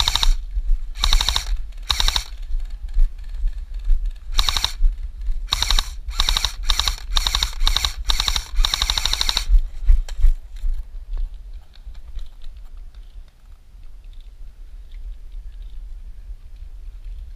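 Airsoft M4 electric rifle firing about a dozen short bursts of rapid, clicking full-auto shots over the first ten seconds, then falling quiet. A low rumble runs underneath.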